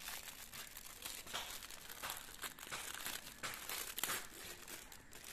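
Clear plastic bag crinkling as it is handled and pulled out of a cardboard box: an irregular crackle with a sharper snap about four seconds in.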